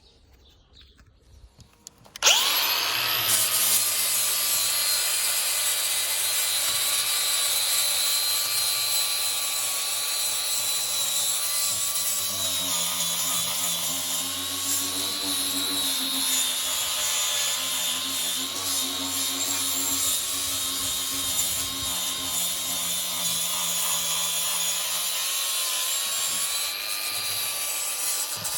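Angle grinder fitted with a 125 mm sanding disc, switched on about two seconds in and then running steadily with a high whine, sanding old paint off the fascia boards.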